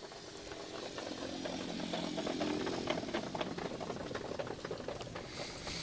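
A motor vehicle's engine running steadily, swelling a little about two seconds in and easing off again, with light rattling and small ticks over it.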